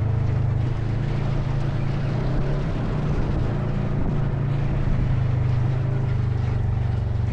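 ATV engine running steadily while riding, its pitch shifting slightly now and then, with a rush of wind and trail noise.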